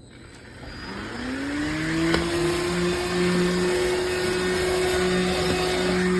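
Powools cordless handheld vacuum switched on: its motor spins up in a rising whine about a second in, then runs at a steady pitch.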